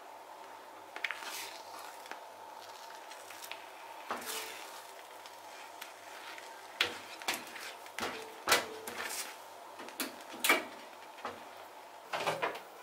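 A metal spoon stirring thick milk mochi paste in a small frying pan, with a series of scrapes and knocks against the pan, most of them from about four seconds in and a cluster near the end. A faint steady hum runs underneath.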